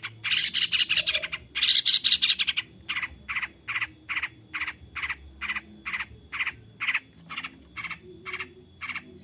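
Long-tailed shrike (cendet) singing: two bursts of fast, scratchy chattering, then from about three seconds in a steady run of short 'toet' notes, about two and a half a second, which stop just before the end.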